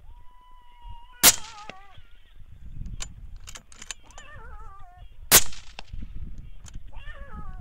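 Jackals calling: bouts of wavering wails that fall in pitch, the first preceded by a held steady note. Two loud sharp cracks, about four seconds apart, are the loudest sounds.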